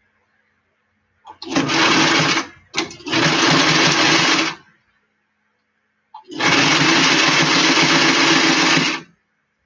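Electric sewing machine stitching a seam through cloth and lining: two runs back to back starting a little over a second in, then after a short pause a longer run of about three seconds.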